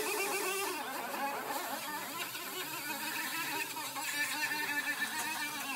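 Air-powered cutting tool running against the sheet-steel rocker panel of a car, a buzzing whine that wavers in pitch as it bites into the metal.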